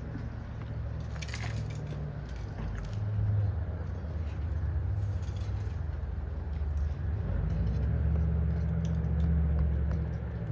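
An engine running steadily, a low hum whose pitch shifts slightly a few times. A brief metallic jingle about a second in.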